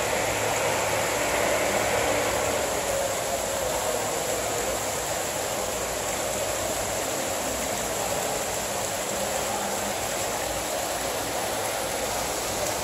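Water from an artificial rock waterfall pouring over stone ledges and splashing into a shallow pool, a steady, even rush.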